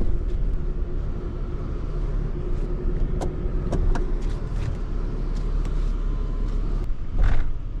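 Ram pickup truck heard from inside the cab while driving slowly: a steady low rumble of engine and tyres with a faint hum, a few scattered light clicks, and a brief louder whoosh near the end.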